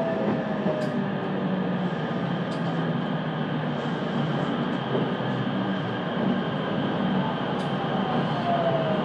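Running noise heard inside a JR West 227 series electric train: a steady rumble of wheels on rail with a low hum. Near the end a thin whine slides down in pitch.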